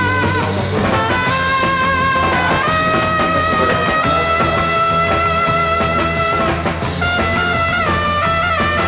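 Background music with sustained melodic notes over a steady bass line.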